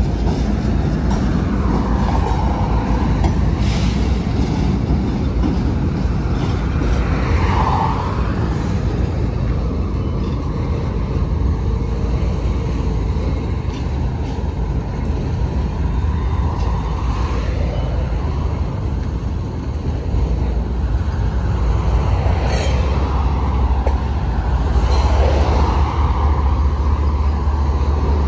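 Union Pacific diesel freight locomotives and a double-stack container train rolling past close by: a steady, loud rumble of engines and wheels on rail, with a few brief swells in the higher sound.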